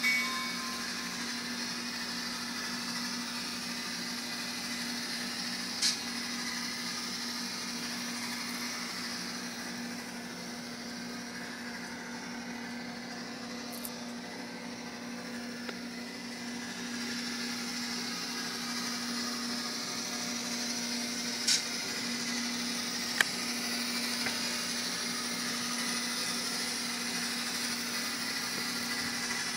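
Bachmann N scale F7A model locomotive running, its Soundtraxx Tsunami Micro decoder playing diesel engine sound through a tiny speaker over the steady whir of the model's motor and gears. There are three short sharp clicks along the way.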